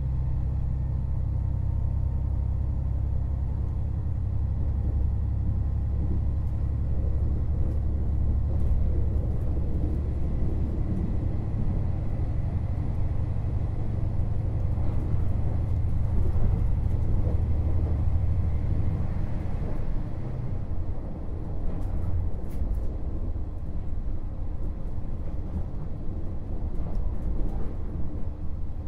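KiHa 48 500-series diesel railcar heard from on board while running: a steady low engine drone with running rumble. The drone changes and eases about twenty seconds in, and a few light clicks follow near the end.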